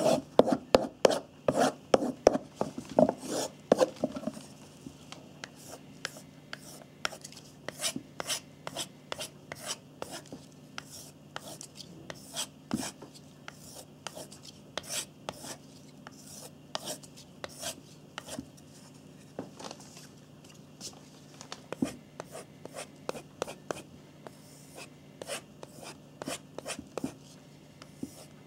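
Knife edge being stroked repeatedly across a sharpening surface, rapid rasping strokes while touching up one remaining spot on the edge. The strokes are strong and quick, about three a second, for the first few seconds, then lighter and more spread out.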